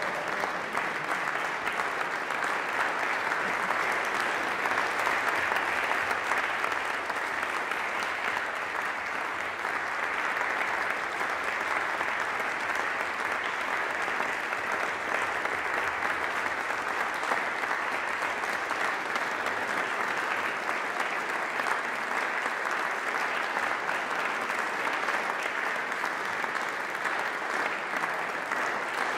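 Audience applauding: dense, steady clapping that neither swells nor dies away.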